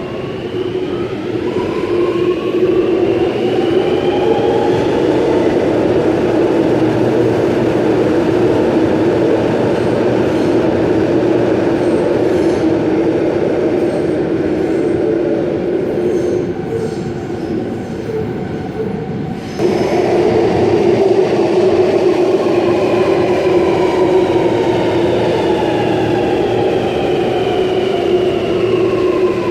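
Sydney Metro Alstom Metropolis driverless train's traction motors whining, the whine rising in pitch as the train accelerates away from the platform. Near the end, another train comes in with its motor whine falling as it brakes to a stop.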